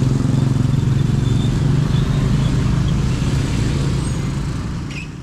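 Road traffic at a railway level crossing: motor vehicle engines running close by as a steady low hum, fading out near the end.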